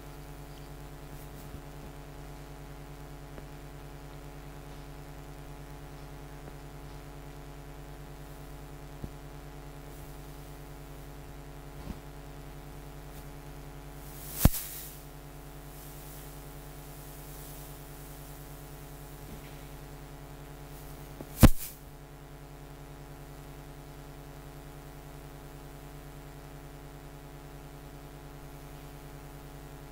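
Steady electrical mains hum made of a stack of even tones. Two sharp clicks or knocks break through it, one about halfway through and one about two-thirds through, with a few faint ticks between.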